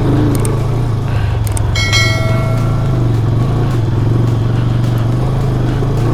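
Motorcycle engine running with a steady, even note while riding a rough trail, with a few clicks and a brief ringing tone about two seconds in.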